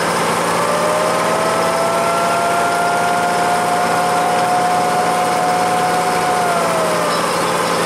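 Motorboat engine running steadily. A long held tone sounds over it, gliding up in pitch about half a second in and sliding back down near the end.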